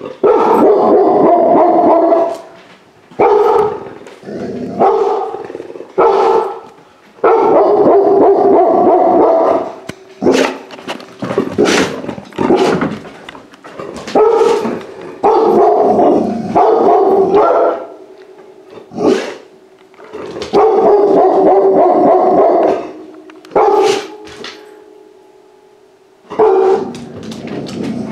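A large-breed pit bull mix puppy barking loudly and repeatedly, in runs of quick barks one to two seconds long with short pauses between them.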